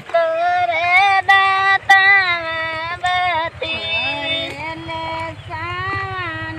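Women singing a kajri, a Bhojpuri folk song sung while transplanting rice, in long held, wavering notes.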